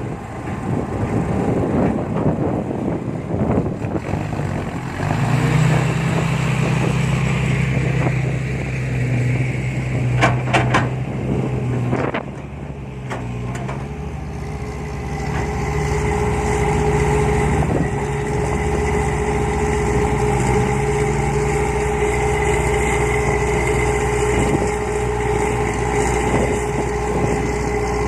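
Heavy diesel engine of a Hitachi excavator working under load, with wind buffeting the microphone at first. The engine note swells about five seconds in, a few sharp knocks come near the middle, and it then settles into a steady run with a constant higher whine over it.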